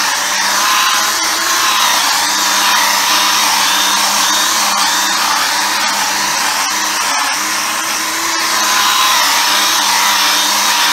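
Handheld 12-volt variable-speed polisher running against painted bodywork, a steady motor whine whose pitch wavers slightly as the pad loads and unloads, while buffing a deep scratch out of the clear coat.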